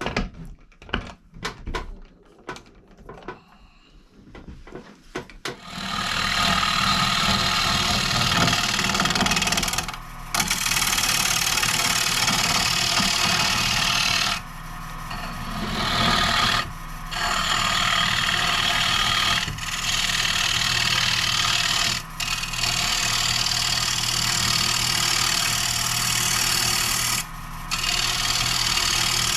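A few scattered clicks and knocks, then about six seconds in a wood lathe starts up and a carbide turning tool scrapes and cuts a spinning maple bowl blank over the steady hum of the lathe. The cutting drops away for a moment about five times as the tool is lifted off the wood.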